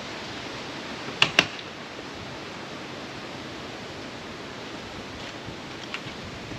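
Steady rushing of strong wind, with two sharp clicks in quick succession about a second in.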